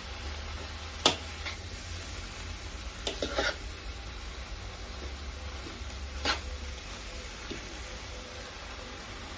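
Chopped cabbage frying in a pan with a steady sizzle while a utensil stirs it, knocking and scraping against the pan: a sharp clack about a second in, a short run of scrapes around three seconds, and another knock near six seconds.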